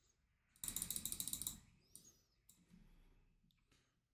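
Quick, evenly spaced clicking from computer controls at a trading desk, about a dozen small clicks in a second, followed by a few faint single clicks.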